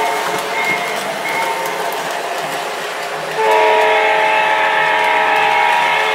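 MTH O-gauge model EMD SD-9 diesel locomotive running on its track with a steady rolling rumble; about three and a half seconds in, its onboard sound system sounds the diesel horn, a chord of several tones held as one long blast.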